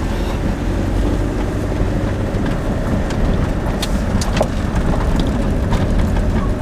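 Inside the cab of a Fiat Ducato diesel camper van driving on a rough dirt track: a steady low engine and tyre rumble, with scattered sharp clicks and knocks from the bumpy surface.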